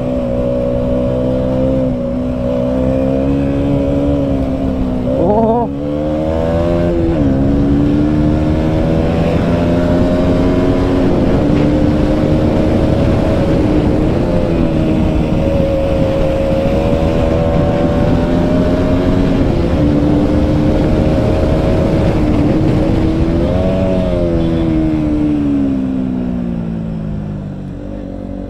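Single-cylinder KTM Duke 200 motorcycle engine running under throttle, its pitch mostly level. The revs rise and drop sharply twice around five to seven seconds in, then rise again briefly and fall steadily through the last few seconds as the throttle is rolled off.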